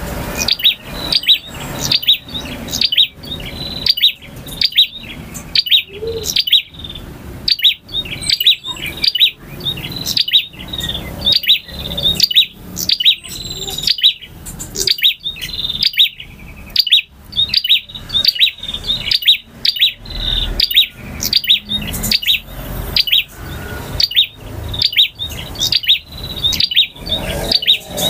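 Male prinia (prenjak) singing: a steady run of sharp, high chirps, repeated about twice a second.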